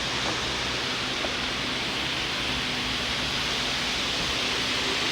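Steady machine noise from a running flexo folder gluer (FFG) carton case maker: an even, hiss-like wash with a low hum underneath, no distinct strokes or changes.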